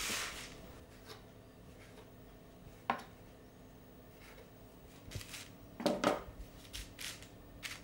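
Knife cutting soft potato gnocchi dough into pieces on a floured wooden bench. It is mostly quiet, with a single tap of the blade about 3 s in, then a run of knocks and scrapes from about 5 s in.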